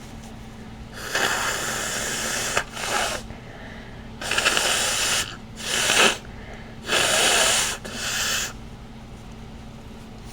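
A person blowing their nose three times, each a long blow followed by a shorter one.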